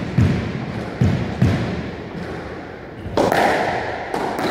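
A squash ball struck by rackets and slamming off the court walls and wooden floor during a rally: sharp, echoing hits in two quick pairs about a second apart.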